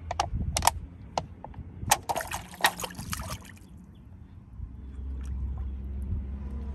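Water splashing and sloshing in a shallow inflatable kiddie pool as a toddler slaps and scoops at it with his hands and a plastic cup. A quick run of sharp splashes comes in the first three seconds or so, then it goes quieter.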